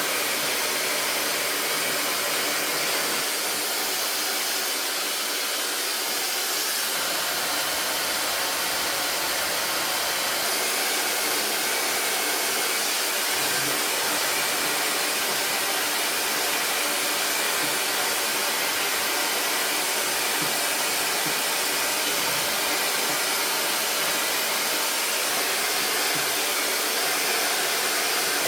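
Ionic hair dryer running steadily, a constant rush of blown air while hair is dried.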